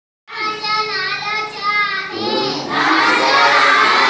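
Children singing: a high child's voice holds wavering notes, and about two and a half seconds in many children's voices join in together.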